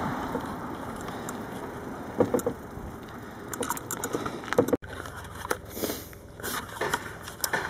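Wind rushing over the microphone of a handheld camera on a moving bicycle, easing off, with scattered clicks and rattles from the bike and from handling. The sound breaks off suddenly about two-thirds of the way through, and more clicks and knocks follow as the bike is set down.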